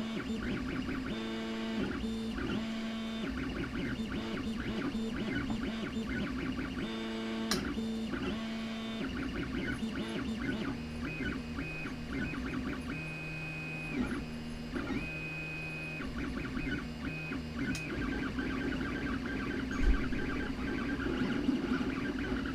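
3D printer stepper motors whining as the print head moves, holding one pitch for a moment and then jumping to another as the moves change speed and direction, over a steady running hum.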